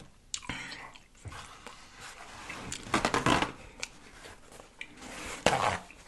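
A paper napkin being pulled and rustled, in three short crinkly bursts.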